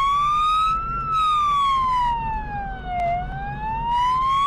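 Police siren on a slow wail: the tone climbs for about a second, falls for two seconds, then climbs again, over a low, steady vehicle rumble.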